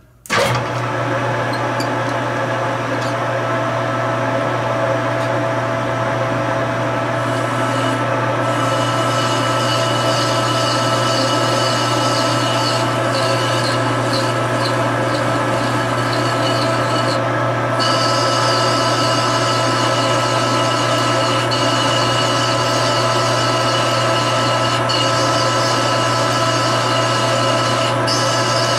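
Metal lathe starting up just after the start and then running steadily under power while cutting the workpiece, a steady motor hum with several steady tones over it. A higher whine joins about 7 seconds in and drops out about ten seconds later.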